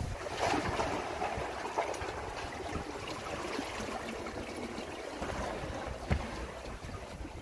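Seawater sloshing and trickling among rocks in a tide-pool crevice, with a single light knock about six seconds in.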